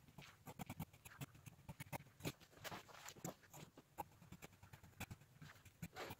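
Faint, irregular small clicks and scratches of hand work on upholstery materials, several a second.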